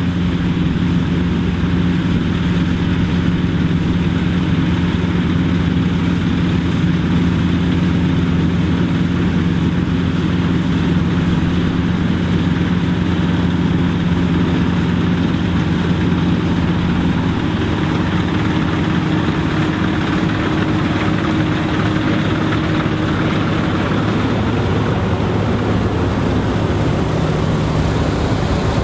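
Dronningborg D900 self-propelled combine harvester running steadily in the field: a continuous engine drone under a wide mechanical rush, with its pitch shifting slightly past the middle.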